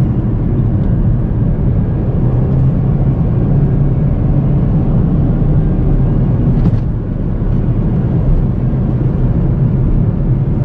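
Steady road and engine noise inside the cabin of an Audi A4 2.0 turbo cruising at highway speed, a low even rumble of tyres and engine.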